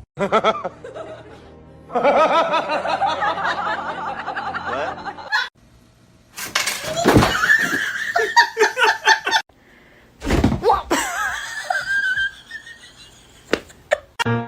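People laughing in several short stretches over background music, broken by sudden cuts.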